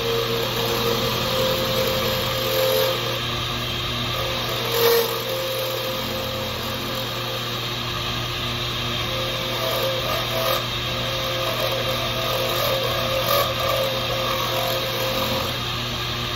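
Small pen lathe running steadily while a deer antler blank is turned, with tones that come and go as the work goes on and one short louder moment about five seconds in.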